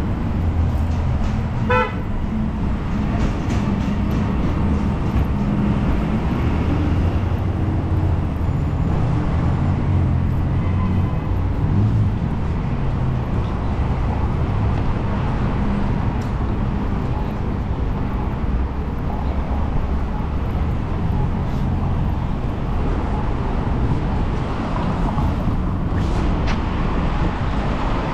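Steady city street traffic noise of passing cars, with a short car-horn toot about two seconds in.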